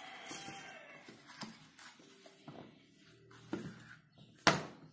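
Handling noises as a hot glue gun and its tangled cord are picked up and sorted out: rustling and light clicks, with a sharper knock near the end.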